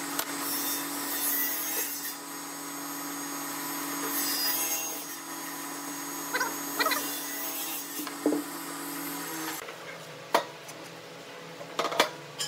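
Wood lathe running, with a tool working against the spinning wood, a steady hum under a loud hiss. The cutting stops about nine and a half seconds in, followed by a few knocks.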